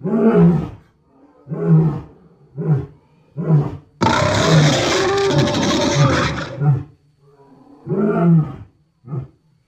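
Sound-designed Dryptosaurus roars, built from lion roars and other creature roars. Four short roars, then one long roar about four seconds in that lasts nearly three seconds, then two more short ones near the end.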